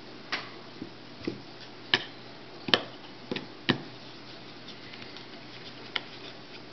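Sharp metallic clicks and taps from a small screw and screwdriver working on the metal magnet hub of an MP10 pump motor as the screw is set in and driven down. The clicks are scattered and irregular, most of them in the first four seconds and one more near the end.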